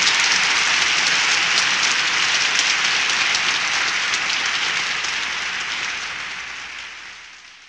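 Audience applauding, a dense run of many hands clapping that fades out over the last couple of seconds.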